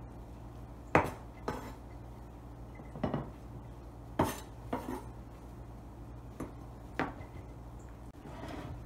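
Kitchen knife knocking and scraping against a plastic cutting board and a ceramic plate while cut Chinese broccoli leaves are gathered onto the plate. About seven sharp, irregular knocks, the loudest about a second in, over a low steady hum.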